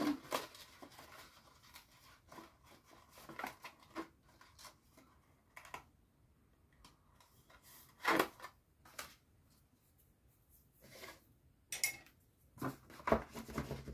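Cardstock being folded and pressed by hand into a small gift box: scattered paper rustles and crinkles with quiet gaps between, the loudest about eight seconds in.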